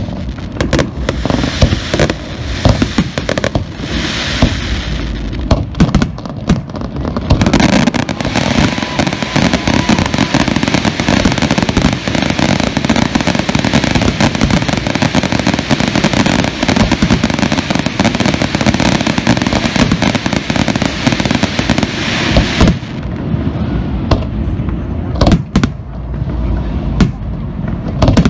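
Aerial fireworks display: rapid bangs from shells bursting, merging about eight seconds in into a dense, continuous barrage that thins out abruptly after about 23 seconds to scattered separate booms.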